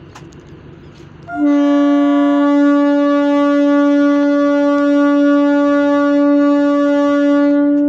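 DEMU train's air horn sounding one long, loud, steady blast of about six seconds, starting about a second and a half in with a brief higher note at its onset.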